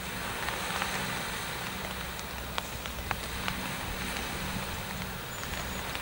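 Light drizzle: a steady hiss with scattered sharp ticks of raindrops, over a low steady hum.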